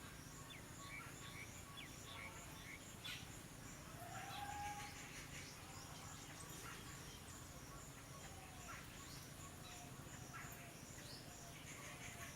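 Faint rural ambience: scattered small bird chirps, an insect's pulsing high chirp repeating evenly, and one short gliding bird call about four seconds in, over a steady low hum.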